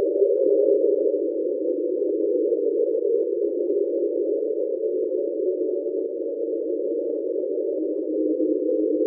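Underwater recording of the 1997 'Train' sound: a steady drone of several close tones, officially explained as an iceberg scraping the seafloor.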